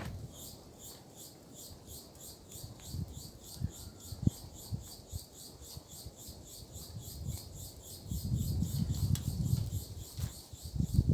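Rhythmic high-pitched chirping, about four chirps a second and very even, typical of an insect calling. Under it are low rustles and a few soft knocks, busiest about eight to ten seconds in.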